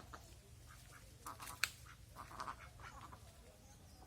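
A run of short, fairly faint calls from fowl, a sharp click about one and a half seconds in, and a steady low hum underneath.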